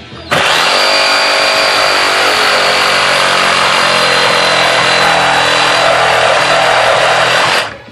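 Reciprocating saw (Sawzall) cutting into a wooden subwoofer box. It starts suddenly, runs steadily at full speed for about seven seconds, and stops near the end.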